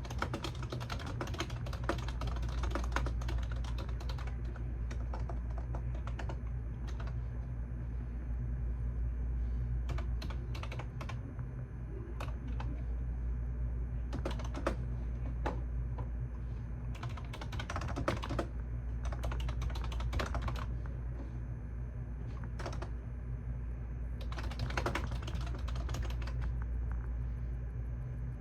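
Typing on a computer keyboard in bursts of rapid key clicks with pauses between them, over a steady low hum.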